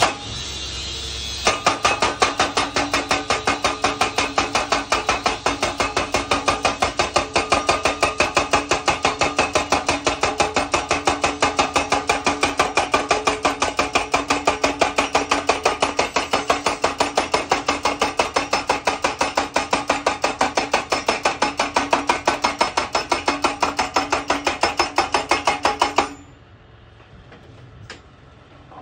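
Tractor-mounted hydraulic post-driving hammer pounding a steel crash-barrier post into the ground: rapid metallic blows about three a second with a ringing steel tone. The blows start about a second and a half in and stop abruptly near the end, leaving only a low engine hum.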